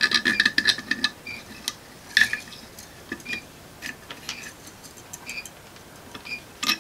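A mechanical clock ticking steadily, a tick-tock of about two beats a second, with light clicks and clatter of small plastic clockwork parts being handled, busiest in the first second and with sharper clicks about two seconds in and near the end.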